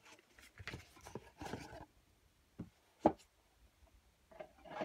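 A black watch presentation box being handled and closed: faint scraping and rustling, then two light knocks close together about two and a half to three seconds in, the second the louder.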